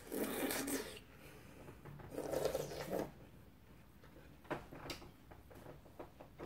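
Close-miked bites into crisp, juicy watermelon: two crunchy, wet bursts, one at the start and one about two seconds in, followed by a few faint clicks.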